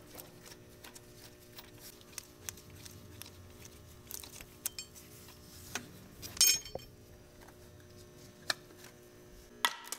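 Scattered light metallic clinks and ticks of steel intake-manifold bolts being pulled out by hand and knocking against the engine, the loudest about six and a half seconds in, over a faint steady hum.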